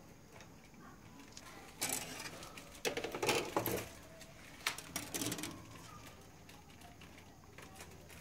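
Plastic model-kit sprues being handled and set down on a wooden table: a few short bursts of light clicking and rustling, about two, three and five seconds in.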